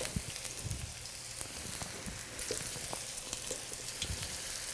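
Pupusas frying in shallow hot oil in a frying pan: a steady sizzle with scattered small crackles and pops. The sizzle picks up a little about halfway through as a second cake is laid into the oil.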